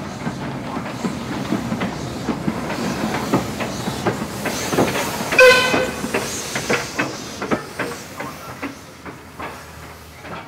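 Caledonian Railway 812 Class 0-6-0 steam locomotive No. 828 running away from the listener, its wheels clicking over the rail joints with some steam hiss, growing fainter over the second half. A brief ringing tone about halfway through is the loudest moment.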